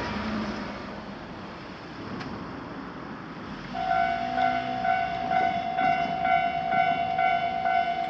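Japanese railroad crossing alarm starting to ring about four seconds in, a steady electronic ding repeating about twice a second, signalling that a train is approaching and the crossing is closing. Before it, the noise of a passing road vehicle fades away.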